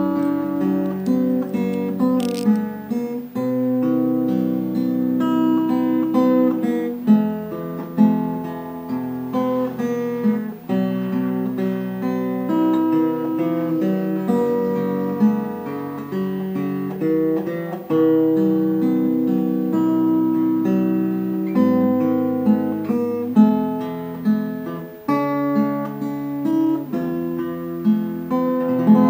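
Background music: acoustic guitar playing plucked notes and chords continuously.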